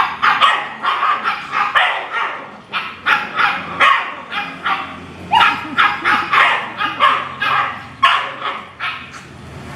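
Dogs barking in play-fighting: quick, repeated sharp barks, a few a second, which die down just before the end.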